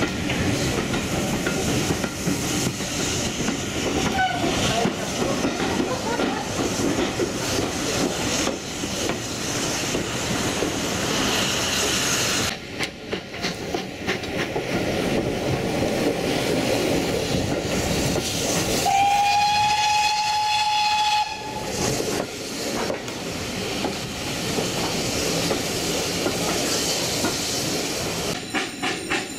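Steam-hauled train running, heard from the carriages behind GWR Manor class 4-6-0 locomotive 7828 Norton Manor, with continuous wheel and rail clatter. About two-thirds of the way through, the locomotive's steam whistle sounds once, a single steady note held for about two seconds.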